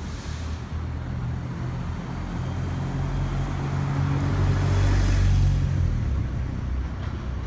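A motor vehicle rumbling past in street traffic, growing louder to a peak about five seconds in and then fading, with a faint high whine over it.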